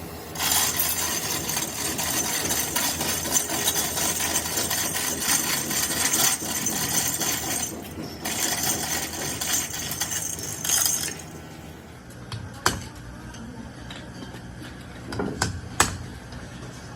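A loud continuous rushing noise runs for about eleven seconds, with a short break near eight seconds, then stops. After it come a few sharp metallic knocks of tools being set down or struck.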